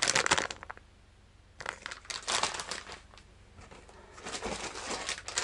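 Plastic lure packages crinkling as they are handled, in three spells: a short one at the start, then longer ones from about one and a half seconds in and again from about three and a half seconds in.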